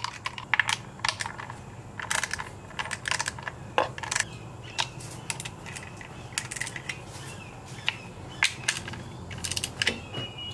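Hand socket ratchet clicking in short runs as engine cover bolts are driven in, with odd taps and clinks of the tool and socket.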